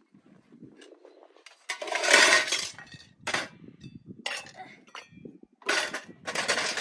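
Cooking pots and dishes clinking and clattering in four short bursts, the loudest about two seconds in.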